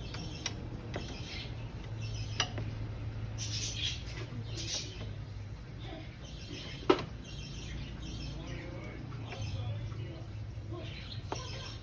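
Scattered metallic clicks and clinks of hand tools on the engine while the serpentine belt is being taken off, over a steady low hum; one sharp click about seven seconds in is the loudest. Birds chirp in the background.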